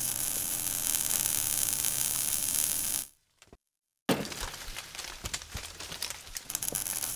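Outro sound effects for an animated logo: a steady hissing, crackling rush that cuts off suddenly about three seconds in. After about a second of silence comes a sudden crash with crackling that slowly fades.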